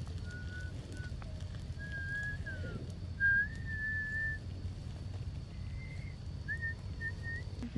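A person whistling a few long notes, some held steady and some sliding up or down in pitch, the loudest about three seconds in, over a low steady rumble.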